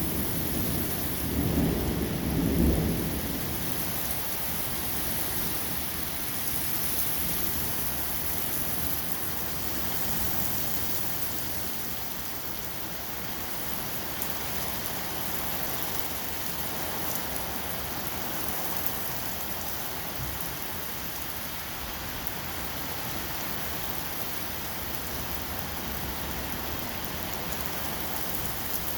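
Steady rain, with a low rumble of thunder in the first few seconds that then dies away.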